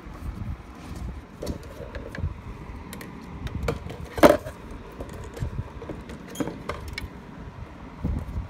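Honda Odyssey fuel pump assembly being worked loose and lifted out of the fuel tank opening: scattered light plastic clicks and rattles, with one sharp knock a little past four seconds in.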